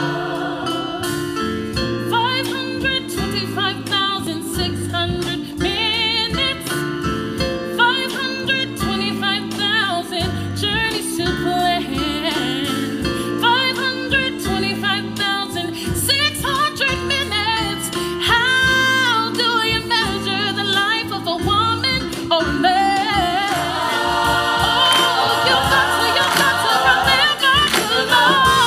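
A woman singing the lead solo of a musical-theatre number in a gospel style with vibrato, over a steady band accompaniment. Near the end more voices fill in around her and the sound grows fuller, like an ensemble choir joining.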